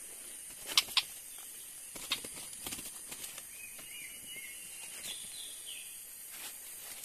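Forest ambience: a steady high hiss, with a few short bird chirps in the middle. Two sharp clicks about a second in are the loudest sounds, with a few fainter clicks later.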